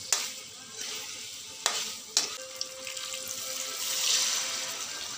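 Chicken and sauce sizzling in a hot wok, with three sharp knocks of a metal spatula against the pan in the first half. About three and a half seconds in, water is poured into the hot wok and the sizzle swells to a loud hiss that slowly dies down.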